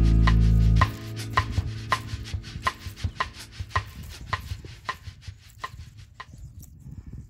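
A steady run of sharp knocks, about three a second, growing gradually fainter. Background guitar music cuts off abruptly about a second in.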